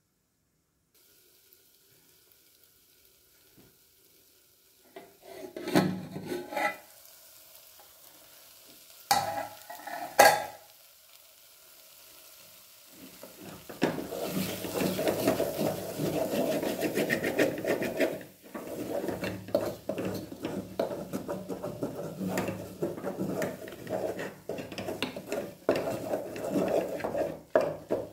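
A few loud metal clanks as the aluminium plate lid is handled, then a spatula stirring and scraping steadily through a thick, sizzling cow-skin and bamboo-shoot pickle in an aluminium pot, from about halfway on.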